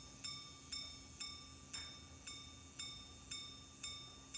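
The gong of a Grandjean minute repeater pocket watch striking the time: nine evenly spaced strikes of the same note, about two a second, each ringing briefly and fading before the next.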